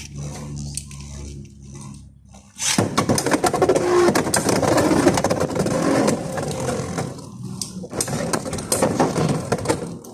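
Beyblade X spinning tops launched into a plastic stadium about two and a half seconds in. They then spin, clattering and scraping against each other and the stadium walls in a dense run of clicks.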